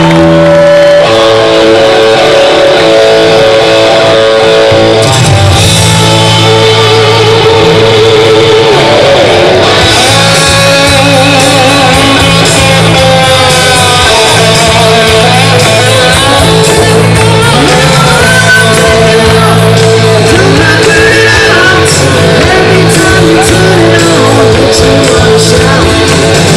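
Rock band playing live, electric guitar to the fore.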